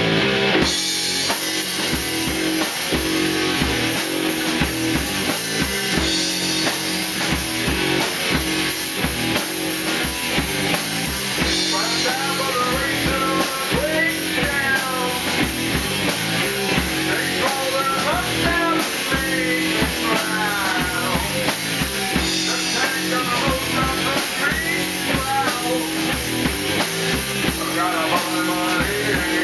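Rock band playing live in a small room: drum kit, electric guitars and bass, with a male vocalist starting to sing about twelve seconds in.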